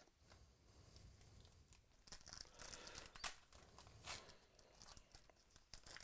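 Foil trading-card pack being torn open and crinkled by hand, faint, with two sharper rips about three and four seconds in. The first two seconds hold only soft rustling of cards being handled.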